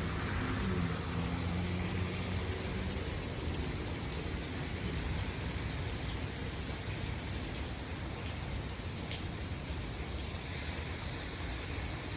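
Steady rain falling, an even hiss, with a low rumble in the first couple of seconds.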